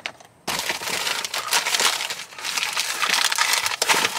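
Rummaging through loose items, with loud dense crinkling and rustling that starts about half a second in and stops near the end.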